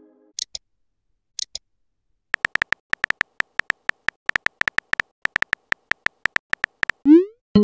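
Synthetic phone keyboard typing clicks from a texting-story app: a few separate high ticks, then a fast run of short clicks as a reply is typed letter by letter. Near the end comes a quick rising swoosh of the message being sent.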